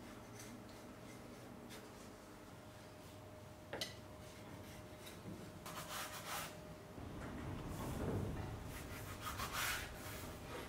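Thin rolled dough being cut on a wooden board with a glass rim and a knife: short scraping strokes, the loudest near the end, with one sharp knock about four seconds in.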